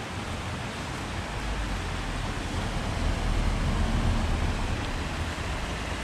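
Steady rushing of flowing water, with a low rumble that swells about halfway through.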